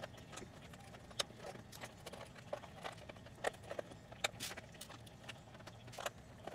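Faint, scattered light clicks and small metallic ticks of screws being backed out of a laptop's plastic bottom cover and set down.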